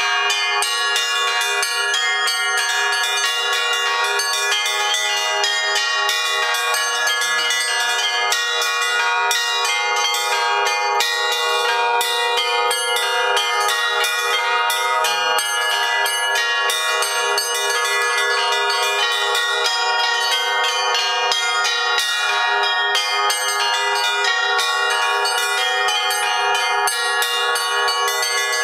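Russian Orthodox church bells ringing a continuous peal: several bells struck in quick succession, their ringing tones overlapping at a steady level.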